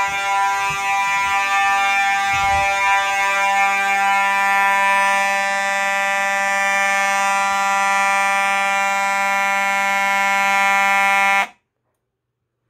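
Electromechanical fire alarm horn, a Simplex 4903-9219 horn strobe, sounding a loud, continuous, steady buzzing tone with no pulses. It cuts off suddenly near the end.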